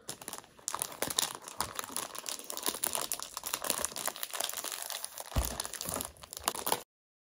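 Plastic snack bag crinkling and rustling as it is pulled and torn open by hand, with one soft thump a little after five seconds in; the sound cuts off suddenly near the end.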